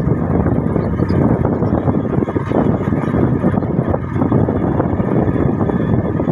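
Steady rumble of a moving vehicle with wind buffeting the microphone, dense and loud throughout.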